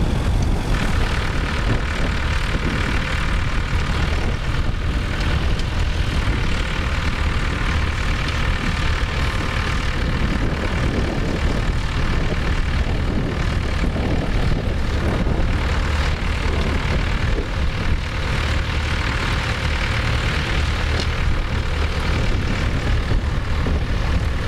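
Tractor diesel engine running steadily, a continuous low rumble with a faint whine above it.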